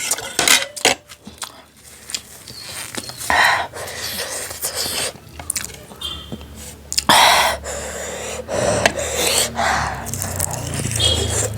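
Close-miked eating sounds: mouthfuls of food with sharp, hissing breaths and snorts in between, as from eating very spicy noodles.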